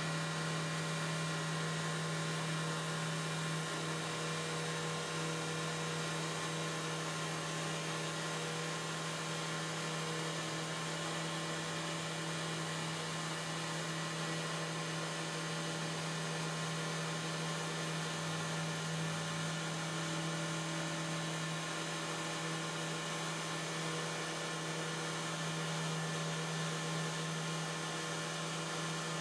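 CNC router spindle running steadily as a knurled tile-and-glass bit cuts through carbon fiber sheet: a constant hum with several steady higher tones and a hiss of cutting.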